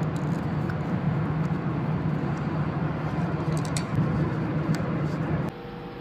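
Steady machinery noise in a ship's steering gear room, a strong low hum under a noisy rush. A few sharp clicks about three and a half to five seconds in come from the low-level float switch's connector plug being handled and pulled off the oil tank. The machinery noise cuts off abruptly near the end.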